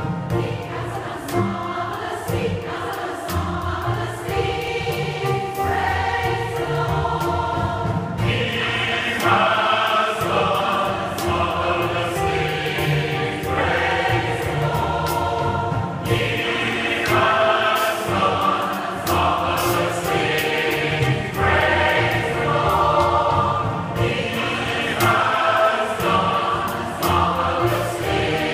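A large mixed choir of men and women singing together in parts, swelling fuller and brighter about eight seconds in and again midway.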